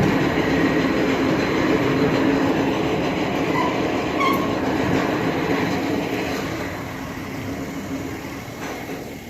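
Loud, steady rumbling noise that fades away over the last few seconds.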